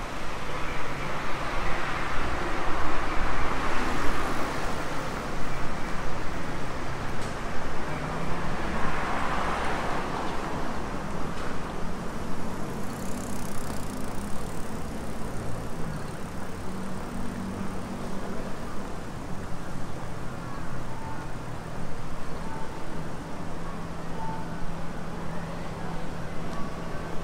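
Road traffic on a city street: cars passing, with two louder pass-bys in the first ten seconds and a steady low hum in the second half.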